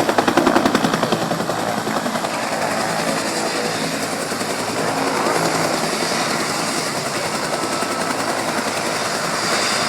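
Helicopter rotor chopping, loudest in the first second, then continuing as a steady mix of blade chop and engine noise.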